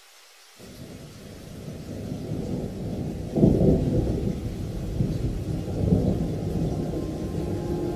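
A low, thunder-like rumble that comes in about half a second in and swells, with a loud boom about three and a half seconds in, then keeps rumbling.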